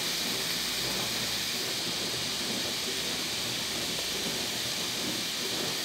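Stir-fried broccoli sizzling in a hot frying pan as a steady, even hiss, from a splash of vegetable broth just poured over it.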